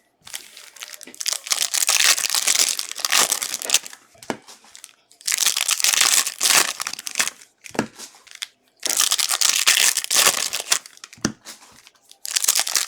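Plastic trading-card pack wrappers being torn open and crinkled, in four bouts of rustling with short pauses between.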